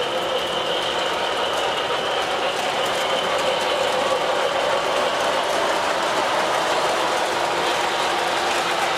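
O gauge three-rail model passenger train running past: the metal wheels of the cars rolling steadily on the track, with a steady high whine that fades out about halfway through.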